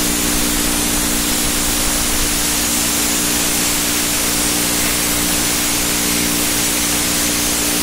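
Craftsman 1/2 HP air compressor pump running steadily on a test run just after repair: a loud, even hiss of air over the motor's steady hum, the piston ring still seating in.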